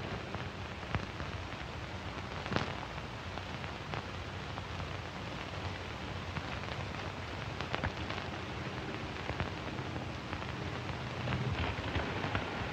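Steady hiss with scattered, irregular crackles and pops: surface noise of a worn mid-1940s film soundtrack.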